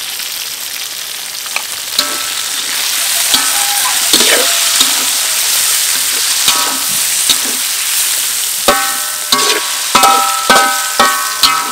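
Raw meat pieces and minced garlic sizzling in hot oil in a wok, stirred with a metal spatula that scrapes and clanks against the pan. The clanks ring briefly and come more often near the end.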